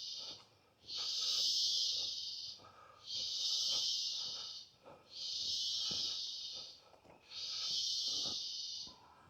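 Rainforest insect chorus, a high buzzing call that swells and breaks off in a steady rhythm. Each buzz lasts about a second and a half and comes roughly every two seconds.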